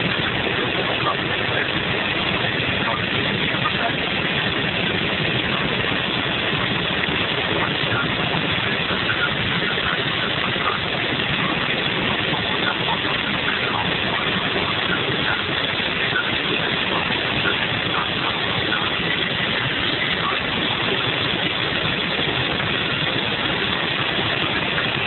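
Audi TT 1.8T's turbocharged four-cylinder running at sustained high speed, heard inside the cabin as a steady, even mix of engine, wind and tyre noise. It holds the same level and pitch throughout, with no revving or gear changes.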